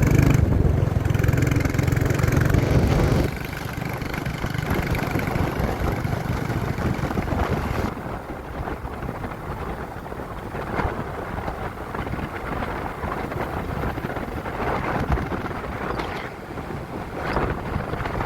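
Motorcycle riding along the road with wind buffeting the microphone. The engine is loudest for about the first three seconds, then drops back into a steadier rush of engine, wind and road noise.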